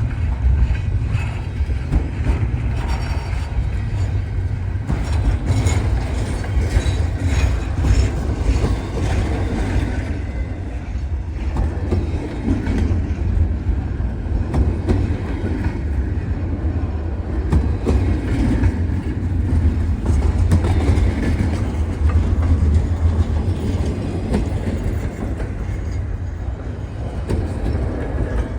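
Freight cars of a long freight train rolling past at the crossing, a steady low rumble with wheels clicking over the rail joints and a faint metallic squeal from the wheels.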